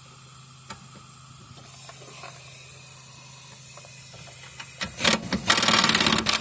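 Ratchet wrench clicking rapidly: a couple of short bursts about five seconds in, then a fast, even run of clicks for about a second, over a low steady hum.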